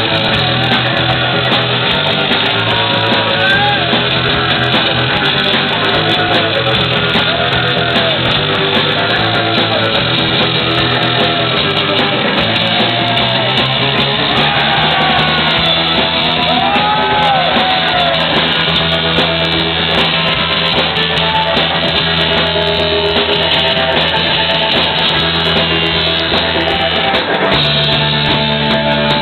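Garage rock band playing live: electric guitars over a drum kit, with a change in the playing near the end.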